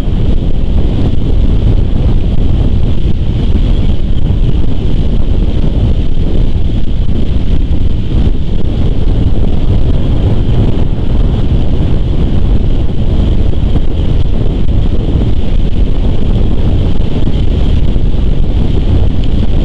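Wind buffeting an outdoor nest-cam microphone: a loud, steady rumble with a constant high hiss above it.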